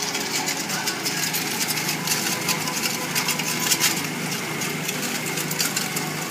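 Vertical stainless-steel colour mixer running with a load of powder: a steady motor hum under a dense crackling hiss as the paddle churns the powder around the steel drum.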